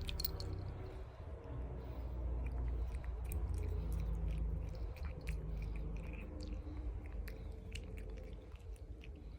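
Animals chewing grass: a steady run of small crisp crunches and clicks over a low rumble.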